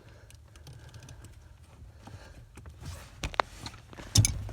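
Quiet handling noise, then a few short, sharp clicks and knocks about three seconds in and again near the end, from hands and tools working the brake light switch and its electrical connector under the dash of a 2004 Honda Pilot.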